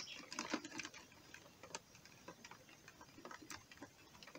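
Faint, irregular light clicks and ticks, with a few more in the first second, from hands working a mesh crayfish trap and handling live crayfish.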